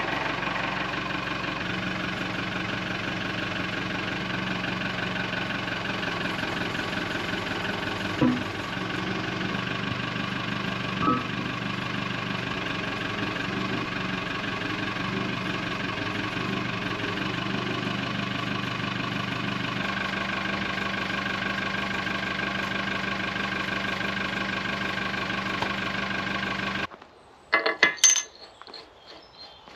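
Tractor engine idling steadily, with a metal clank about eight seconds in and another about three seconds later. Near the end the engine sound cuts off suddenly and a few light metallic clicks follow as steel bolts and washers are handled.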